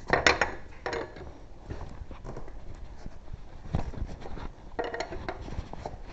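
Scattered light clicks and clinks of hand tools and small parts being handled, in short clusters.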